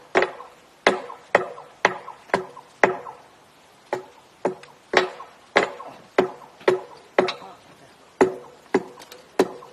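Hand hammer striking the freshly poured thermite weld on a steel rail, knocking away the leftover mould. The blows come about two a second in short runs, each a sharp metallic clank with a brief ring from the rail.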